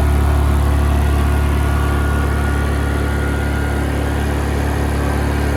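Honda EU2000i inverter generator's small single-cylinder four-stroke engine running steadily, heard close up with a low, even hum.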